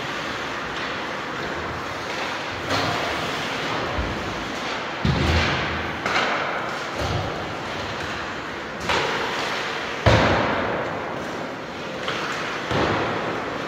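A steady rushing noise with about seven dull thumps at irregular intervals, the loudest about five and ten seconds in.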